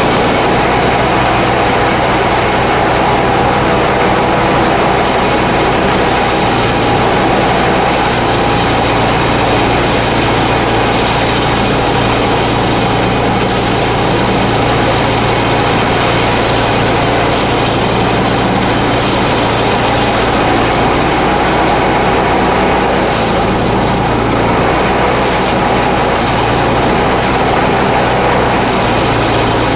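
Engine-driven rice thresher running steadily at working speed: a continuous loud engine drone with a hiss over it.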